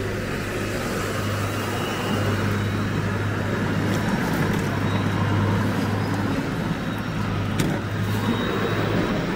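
Street traffic: vehicles passing with a steady low engine hum under the road noise, and a couple of short sharp clicks, the plainer one about seven and a half seconds in.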